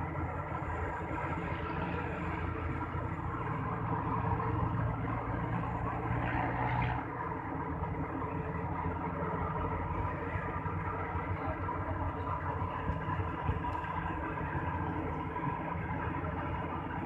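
Rice combine harvester's engine and machinery running steadily; the sound shifts slightly about seven seconds in.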